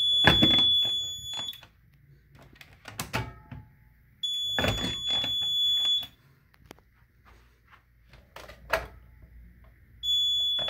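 Fire alarm panel's piezo trouble sounder giving a high steady beep about a second and a half long, three times, as the panel picks up the trouble. Clicks and knocks from a wall-mounted speaker strobe being handled come in between.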